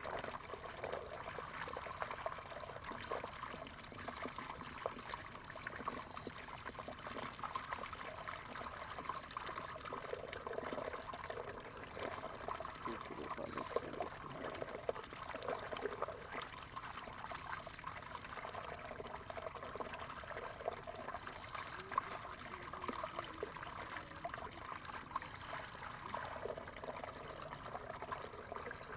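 Water trickling and pouring steadily, with many small splashes and crackles.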